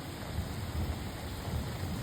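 Thunder rumbling low and unevenly over a steady hiss of rain.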